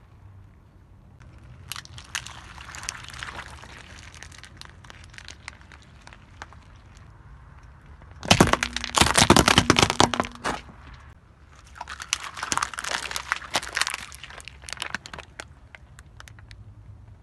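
A car tyre crushing objects on asphalt: bursts of crackling and crunching. The loudest is a dense run of sharp cracks about eight seconds in, as painted walnut shells break under the tyre, with softer crackling bursts before and after it.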